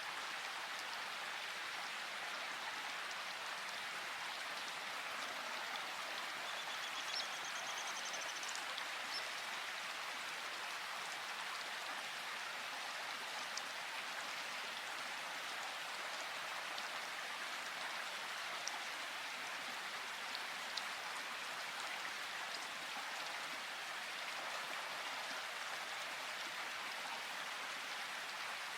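Steady rain falling, an even hiss with occasional sharper drops ticking out from it.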